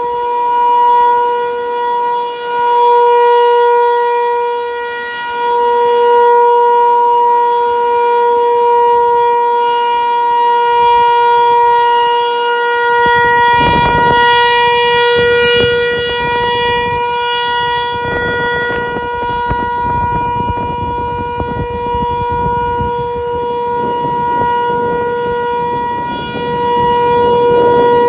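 Federal Signal 508 rotating outdoor warning siren sounding a steady, unbroken tone for its monthly test. The loudness swells and fades every few seconds as the siren head turns. From about halfway through, a rushing noise is heard under it.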